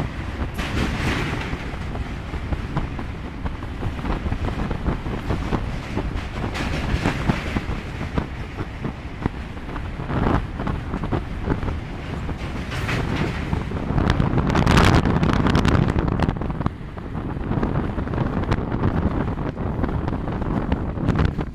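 Indian Railways passenger coach running over a steel truss railway bridge: steady noise of the wheels on the rails and the moving coach, loudest about two-thirds through, with wind buffeting the microphone.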